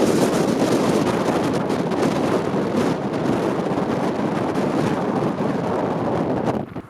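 Strong gusting wind from a sand and dust storm buffeting the camera microphone, a loud steady rush that eases briefly near the end.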